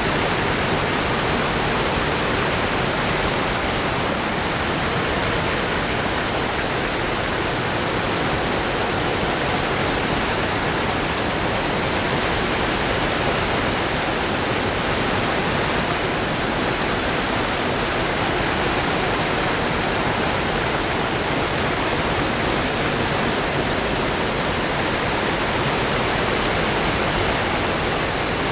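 Waterfall: falling water pouring steadily with a constant, even rush.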